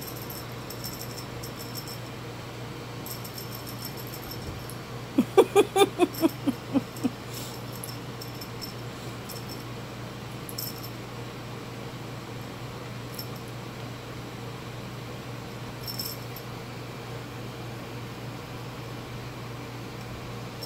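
A dog barking in a quick run of about nine short barks over about two seconds, some five seconds in.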